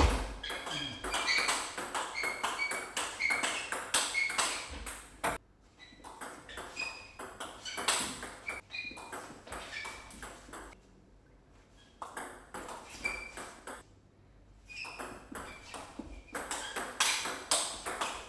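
Table tennis rallies: the celluloid-type ball clicks back and forth off bats and table in quick alternating hits, each with a short high ping. There are several runs of rapid hits with brief pauses between the points.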